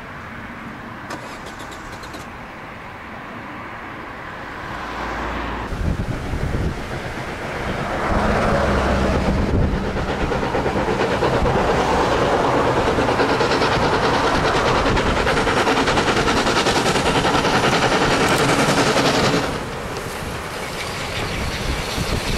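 Small steam locomotive DSB F 441 and its vintage train running along the line. The sound swells about eight seconds in to a loud, steady rush and drops back a few seconds before the end.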